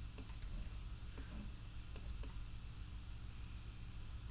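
Faint, scattered clicks of a computer mouse and keyboard as a selection is reselected and dragged, several in quick succession near the start and a few more around a second or two in, over a steady low hum.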